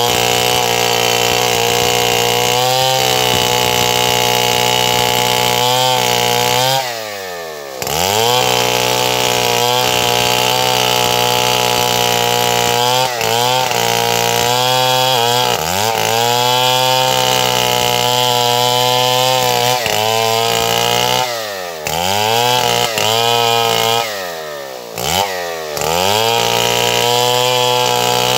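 Stihl 070 big two-stroke chainsaw running hard, sawing wood. Its engine note drops sharply and picks back up several times, twice in quick succession near the end.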